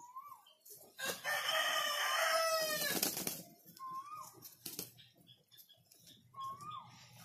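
A rooster crows once, a long call of a bit over two seconds starting about a second in and dropping in pitch at its end. Short rising-and-falling bird chirps sound three times around it.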